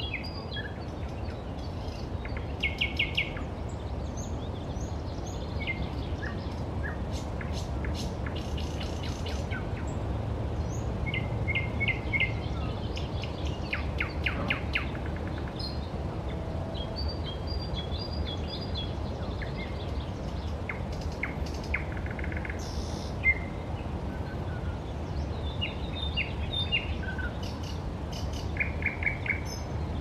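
Several songbirds singing in a spring morning chorus: varied chirps, whistled phrases and rapid trills, one after another, over a steady low background rumble.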